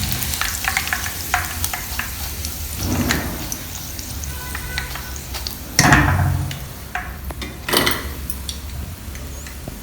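Boneless chicken pieces deep-frying in hot oil, sizzling steadily, with sharp clicks of a utensil against the pan as the browned pieces are lifted out. The sizzle swells briefly three times.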